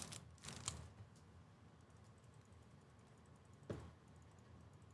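Faint crinkling of a foil trading-card pack wrapper in the first second as the cards are slid out, then near silence with faint light ticks and a single sharper click about three and a half seconds in.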